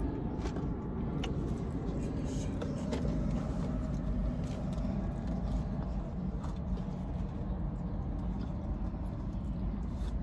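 A person eating, with a few scattered small clicks and crackles over a steady low rumble.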